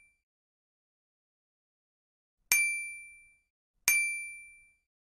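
Two bright, bell-like chime sound effects, the kind of notification ding an animated Like and Subscribe end screen plays. The first comes about halfway through and the second about a second and a half later, each ringing briefly and fading out, with the last of an earlier chime dying away at the very start.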